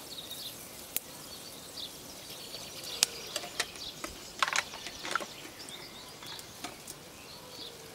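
Quiet outdoor ambience with scattered short bird chirps and a few sharp clicks.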